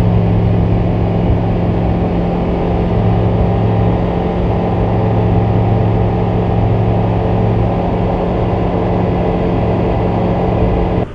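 Rotax 912 Xtra four-cylinder boxer engine and propeller running at full takeoff power: a loud, steady drone through the takeoff roll and climb-out. It cuts off abruptly near the end.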